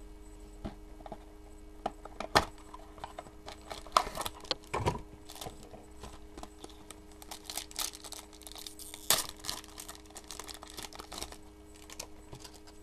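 A trading-card mini box being opened by hand: cardboard snapping and a shiny plastic wrapper crinkling and tearing as the stack of cards is pulled out. There are irregular crackles throughout and sharp snaps about two, four and nine seconds in.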